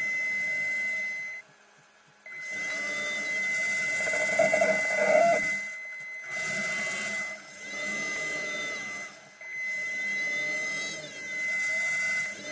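Electric thruster motors of an underwater vehicle whirring in bursts of one to three seconds, cutting in and out with short gaps, the whine sweeping up and down in pitch as they change speed. A steady high tone runs under it, and the loudest burst comes around the middle.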